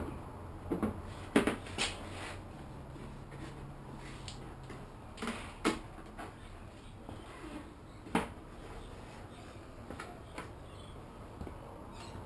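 Scattered wooden knocks and taps as a board is handled and pressed by hand against the bottom of a door: several in the first two seconds, a few more later, the last about eight seconds in.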